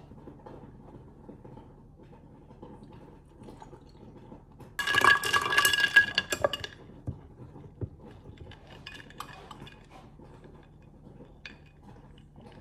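Ice cubes clinking against a glass jar as iced coffee is stirred with a straw: a ringing clatter lasting about two seconds, around the middle. Faint small taps and handling sounds before and after.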